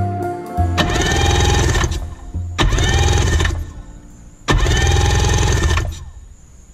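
Electric starter cranking a Sea-Doo GTI's Rotax two-stroke twin in three bursts of about a second each, each spinning up with a rising whine. The spark plugs are out and the cylinders have been soaked with fluid to free the engine, so it turns over without firing.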